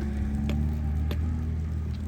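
An engine running steadily with a low hum, with a few sharp clicks or knocks over it.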